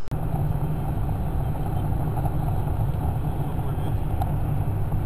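Steady engine and tyre noise inside a car driving on a wet highway.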